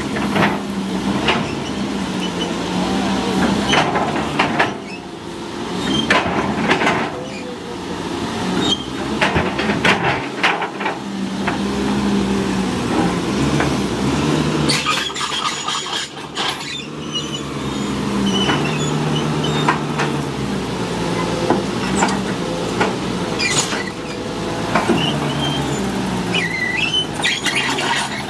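Caterpillar 320C excavator's diesel engine working under hydraulic load, its pitch stepping up and down repeatedly as the boom and bucket move. Scattered sharp cracks and clanks sound throughout.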